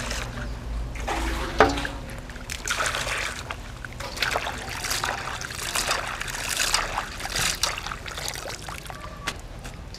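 Hands swishing chopped green vegetable stems around in a stainless-steel bowl of water, with irregular splashing. Water trickles back into the bowl as handfuls are lifted out.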